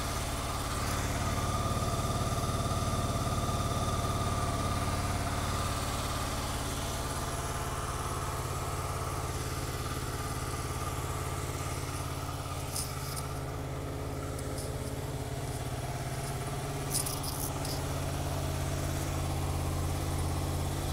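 Honda VFR800 VTEC's 782 cc V4 engine idling steadily while it warms up after a cold start.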